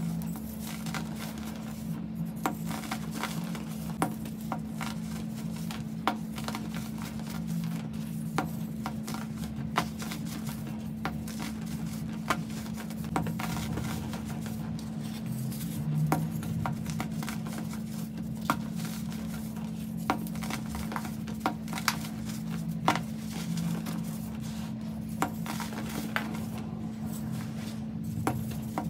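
Packed baking soda clumps being squeezed and crushed by hand, crumbling with many sharp, irregular crunches and crackles into the loose powder, over a steady low hum.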